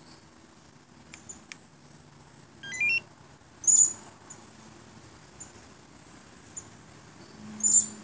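Tomahawk TW9010 two-way pager remote beeping: a short rising electronic melody about three seconds in, then two sharp high-pitched chirps, the loudest sounds, just before four seconds and near the end. Faint clicks come before the melody.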